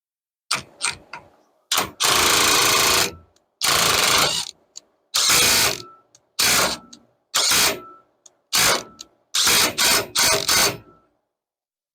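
Hand ratchet wrench clicking in a run of separate strokes, about ten pulls with short pauses between, as the front spindle nut on a wheel hub is turned to seat the freshly packed wheel bearings in their races.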